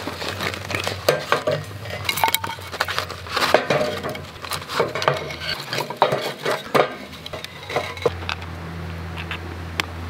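Split firewood sticks being laid into a steel-mesh fire pit: a string of irregular wooden clacks and knocks, with clinks where the wood strikes the metal frame. The knocks thin out near the end.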